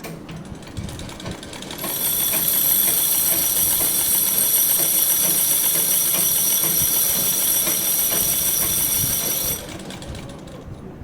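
A sewing machine runs at speed for about seven and a half seconds with a fast, even clatter and a high whine, then stops suddenly. Before and after it there is quieter handling noise.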